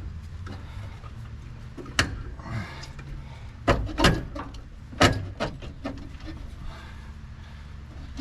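A handful of sharp knocks and clunks, loudest around the middle, from parts and tools being handled during a truck cab teardown, over a steady low hum.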